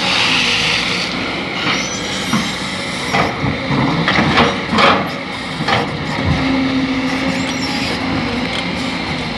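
Excavator working: its engine runs steadily under a quick series of metal clanks and knocks, then a steady whine comes in about six seconds in.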